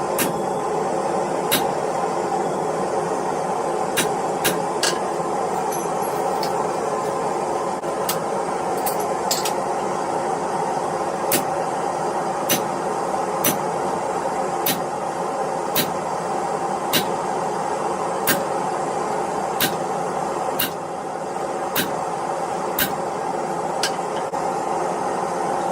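A forge running with a steady rushing hiss, and short sharp strikes of a hammer on iron over it: scattered at first, then an even beat of about one a second.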